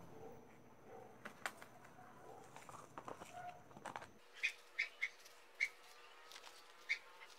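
Faint scattered knocks and soil rustling as a plastic flowerpot is handled and a desert rose's root ball is worked free of it. From about four seconds in there are five short, sharp, high chirps, spaced unevenly.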